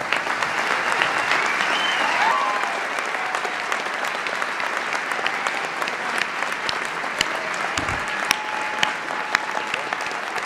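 Large audience applauding steadily, many hands clapping, with a few voices calling out within the clapping.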